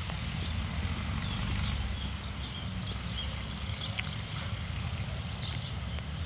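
Wind buffeting the microphone, a steady low rumble, with short high chirps scattered over it.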